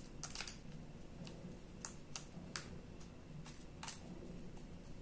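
Small screwdriver clicking against screw heads and the plastic of a 3D-printed forming die fixture as its screws are snugged up by hand: faint, irregular clicks, several in a row.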